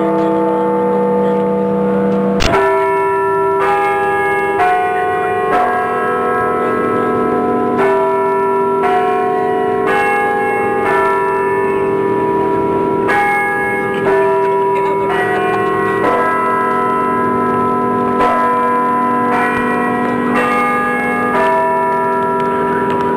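Temple bells struck in groups of four, about one strike a second with a short pause between groups, each strike ringing on at a different pitch so the tones overlap.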